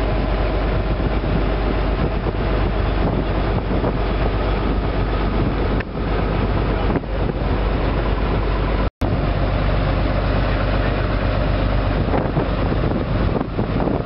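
Engine of the riverboat MV Wairua running steadily under way, a constant low drone with wind and water noise over it. The sound cuts out for an instant about nine seconds in.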